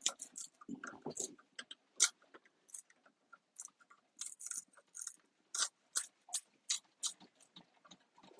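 Irregular crackling and snapping of plastic as the plastic top pieces are pried off the 18650 cells of a Tesla Model S battery module, a dozen or more short cracks scattered unevenly.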